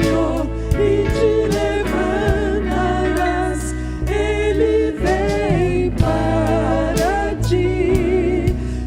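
Christian worship song performed live: voices singing over a band with a steady bass line and regular drum hits.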